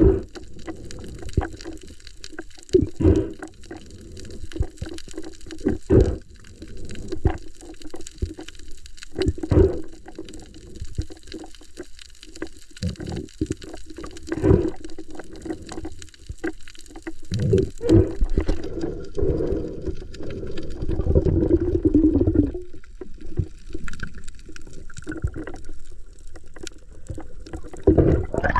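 Water sloshing and gurgling in irregular bursts and swells.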